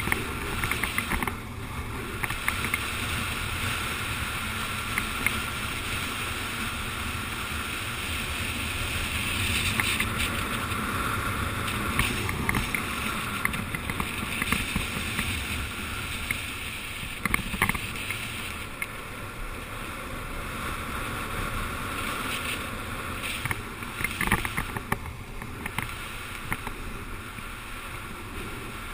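Wind rushing over a helmet-mounted camera and longboard wheels rolling on asphalt at downhill speed: a steady noisy rush with occasional sharp clicks.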